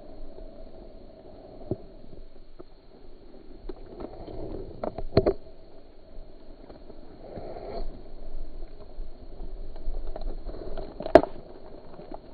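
Scattered knocks and clicks over a low background hiss: one about two seconds in, a quick pair around five seconds, and a louder, sharper click near the end.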